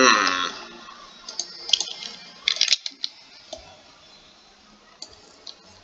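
Scattered clicks of a computer mouse and keyboard, in small clusters, after a short sound falling in pitch right at the start, which is the loudest thing heard.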